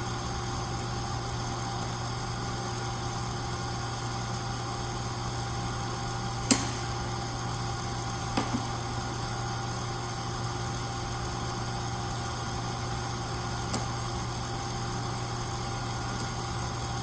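Steady machine hum with a few constant tones, broken by a sharp click about six seconds in and a couple of fainter ticks later.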